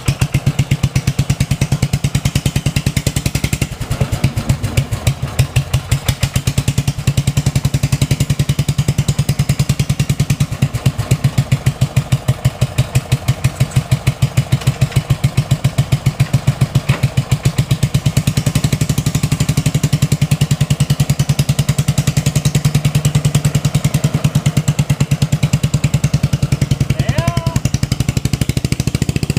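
Engine of a homebuilt 1963 tractor running loud and unmuffled-sounding as it is driven, a rapid, even chug of firing pulses that dips briefly about four seconds in.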